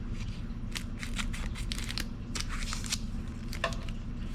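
Panini Chronicles trading cards being handled and slid past one another: scattered soft clicks and brief swishes, over a low steady hum.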